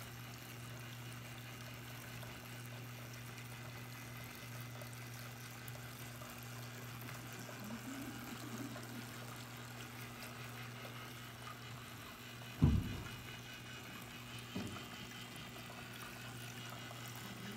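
Small running-water feature in a model nativity scene, trickling steadily over a steady low hum. A single thump is heard about two-thirds of the way through.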